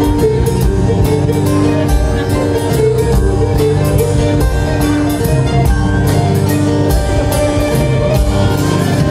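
A live band playing an instrumental passage: acoustic guitar and drum kit keep a steady beat under a held melody line.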